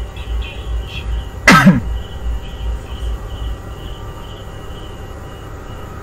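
A short falling vocal sound, like a grunt, about a second and a half in, over a low pulsing beat that fades out about halfway through.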